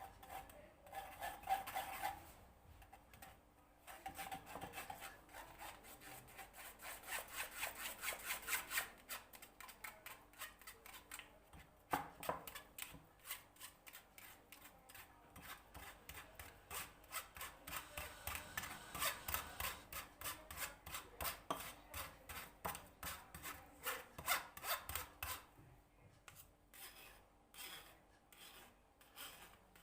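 Pancake batter being hand-whisked in a bowl: quick, even scraping strokes at about five a second, with a short pause near the start, then slowing and thinning out near the end.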